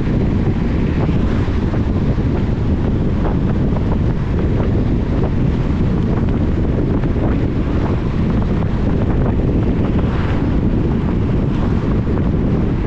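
Steady low rumble of a car driving on wet roads in rain, with scattered light ticks of raindrops and a brief hiss about ten seconds in.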